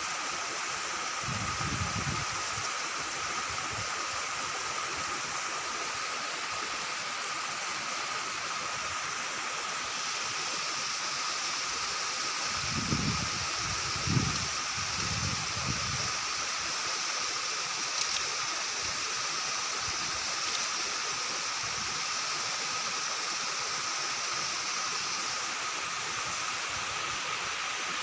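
Steady outdoor background hiss, like running water, with a constant high-pitched tone through it. Brief low thuds come about two seconds in and again a few times between about thirteen and sixteen seconds in.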